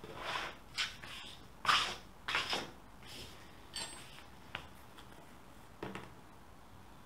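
Rotary cutter and clear plastic ruler worked on a cutting mat, trimming a braided yarn rug fringe: about eight short scraping and crunching strokes in the first six seconds.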